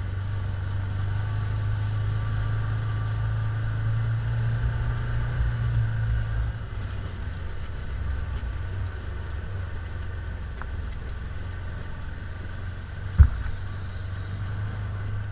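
Side-by-side UTV engine running with a steady low drone, easing off about six seconds in. A single sharp knock comes near the end.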